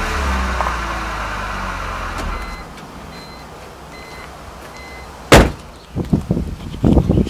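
BMW 325ci's 2.5-litre inline-six falling back from a rev and then stopping about two and a half seconds in. Four short electronic beeps follow, then a single loud thump and a few scattered knocks and rustles near the end.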